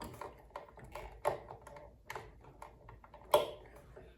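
Irregular small clicks and taps of hand tools and wire being handled while a switch terminal is wired, with two louder knocks, one about a second in and one past three seconds.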